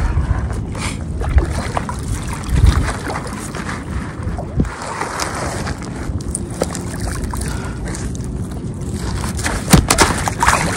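Wind buffeting the microphone in a steady low rumble, with water sloshing and a few sharp knocks.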